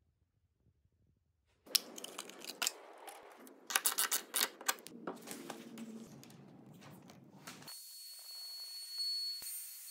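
Clicks and metallic clatter of a Festool plunge router being handled as a router bit is fitted into its collet, in irregular bursts. About eight seconds in it cuts to a steady hiss with a thin high whine.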